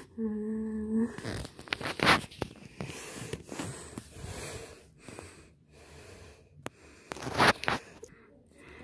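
A person's breathy mouth noises, after a brief held hum at the start, with two louder short blowing sounds about two seconds in and near the end.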